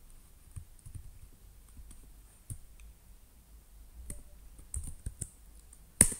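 Computer keyboard keys clicking in scattered presses while a terminal command is edited, with a short cluster of quicker presses near the end and one much louder keystroke about six seconds in, the Enter key that runs the command.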